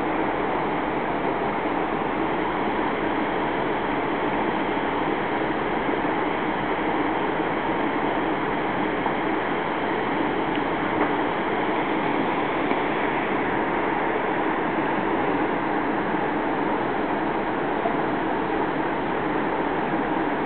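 River water rushing in a steady, unbroken roar.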